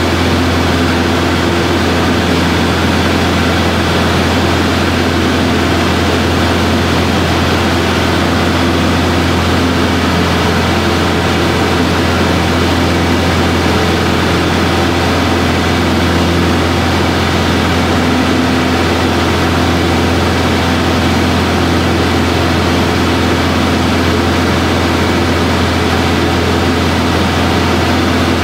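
Aero Boero AB-115 light aircraft's single piston engine and propeller running steadily at takeoff and climb power, a loud, even drone heard from inside the cockpit.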